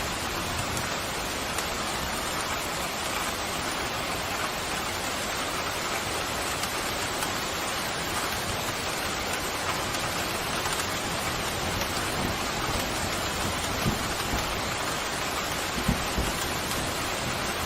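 Steady pouring rain, an even, unbroken hiss, with a few faint low thumps in the second half.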